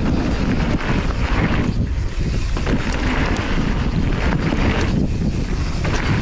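Heavy wind rush buffeting the microphone of a camera on a mountain bike running fast down a dirt jump trail, with tyre and trail noise underneath.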